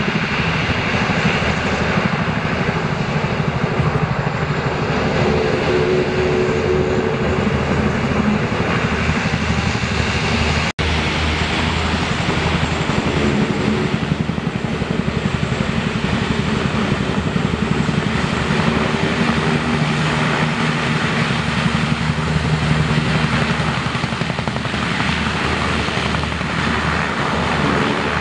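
Landing Craft Air Cushion hovercraft running at full power as it comes ashore: a loud, steady roar of its gas turbines and large shrouded propellers. It is mixed with the sound of a CH-47 Chinook tandem-rotor helicopter hovering overhead. There is a split-second gap about eleven seconds in.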